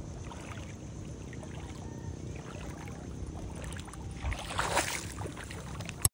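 Bare feet wading through ankle-deep seawater, the water sloshing and splashing with each step, with a louder splash about four and a half seconds in. A steady low rumble runs underneath, and a sharp click comes right at the end.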